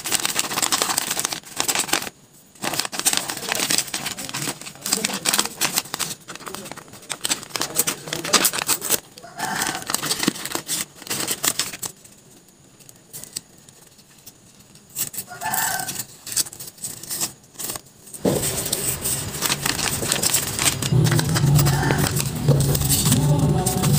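Paper being handled and folded right by the microphone: irregular crinkling and rustling with sharp crackles, pausing for a few seconds about halfway. About three-quarters of the way through, music starts and carries on.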